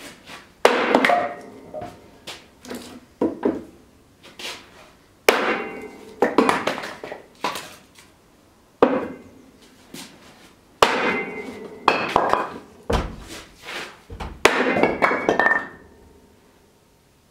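Heavy blows of a hand-swung striking tool at an anvil with a wooden block on it, about fifteen strikes at roughly one a second, unevenly spaced. Some strikes ring briefly with a metallic tone. The blows stop about a second before the end.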